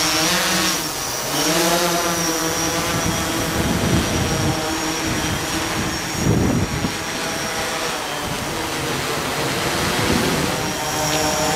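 Electric octocopter's propellers and motors buzzing in flight under the load of a hanging bottle. The pitch of the hum wavers up and down as the rotor speeds adjust, over a steady high motor whine. Two louder rushes of noise come about four and six seconds in.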